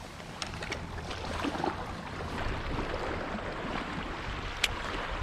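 Steady wind and sea noise, with a few light clicks in the first second and one sharp click near the end.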